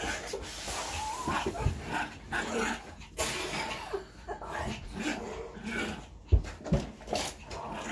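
A child growling, yipping and whimpering like a dog in the role of a werewolf, in short irregular bursts. A heavy thump comes about three-quarters of the way through.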